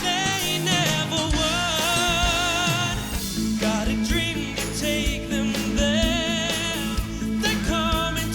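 Live rock band music with a lead singer holding long notes in vibrato over regular drum beats.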